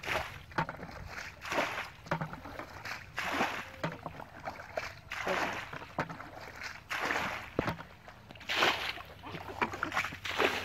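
Muddy water scooped up in a plastic bucket and poured out with a splash, over and over, about every one and a half to two seconds.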